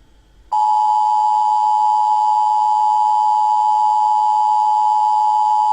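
Emergency alert attention signal: a loud, steady electronic tone of two close notes sounding together. It starts abruptly about half a second in, out of a faint hiss.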